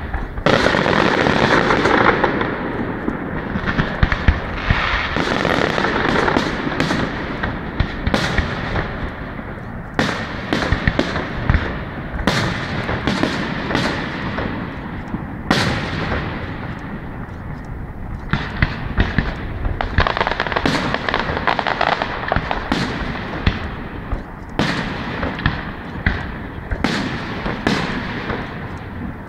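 Fireworks display: a steady run of sharp bangs from aerial shells launching and bursting, over stretches of dense crackling.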